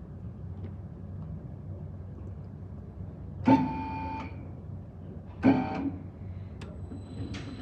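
Two plucked guitar chords about two seconds apart, each ringing out briefly, over a low steady hum.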